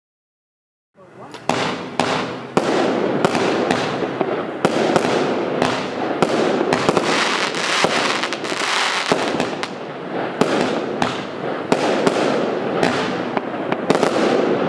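A 16-shot 20 mm fireworks cake firing. Sharp reports come about once a second over a continuous crackling din from the bursts, starting about a second in.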